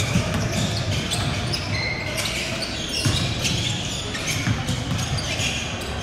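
Basketball game in a gym: the ball being dribbled, with repeated thuds, short high sneaker squeaks and background voices.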